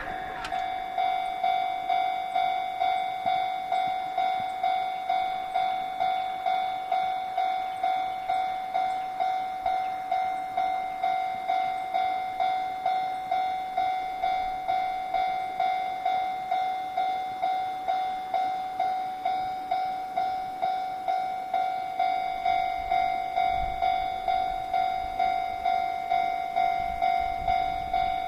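Japanese level-crossing warning bell ringing, a repeated electronic clang at about two strikes a second: the crossing is down for an approaching train. A low rumble comes in near the end.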